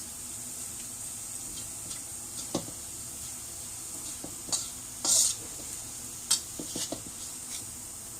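Garlic frying in oil in a pan, a steady sizzle, while a utensil stirs it. The utensil knocks and scrapes against the pan several times, with the longest scrape about five seconds in.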